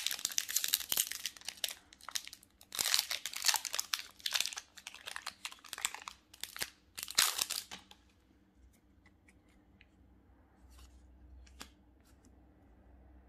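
Foil wrapper of a Magic: The Gathering Commander Legends collector booster pack being torn open and crinkled in the hands for about eight seconds. After that, a few faint clicks as the cards are taken out.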